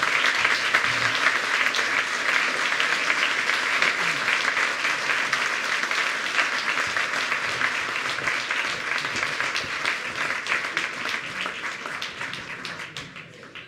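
Theatre audience applauding, a dense steady clapping that fades out near the end.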